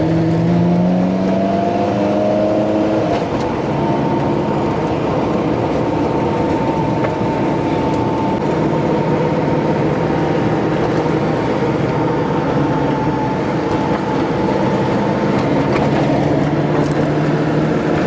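Alfa Romeo 4C's turbocharged 1.75-litre four-cylinder engine pulling up in pitch through the first few seconds, then holding a steady cruise, with road noise, heard from inside the cabin.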